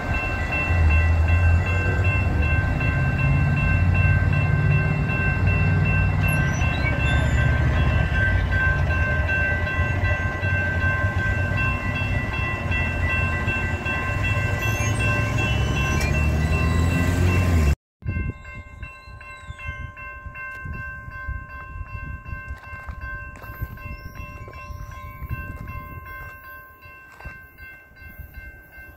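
Passenger train rumbling through a grade crossing while the crossing bells ring with steady tones overhead. The train rumble cuts off abruptly about 18 seconds in, leaving the bells ringing more faintly with a regular ticking.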